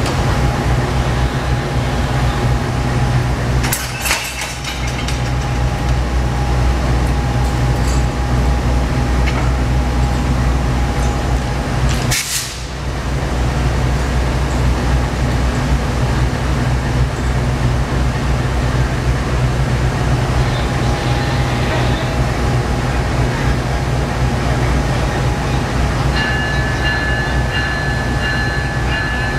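Amtrak P42DC diesel locomotive idling with a steady low rumble. A short sharp noise cuts in about twelve seconds in, and a steady high tone starts near the end.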